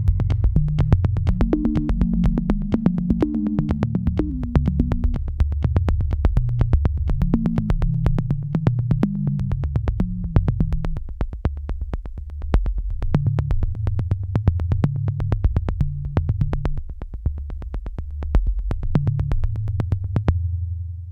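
Background electronic music: low synthesizer notes under a steady drum-machine beat, the beat dropping out near the end.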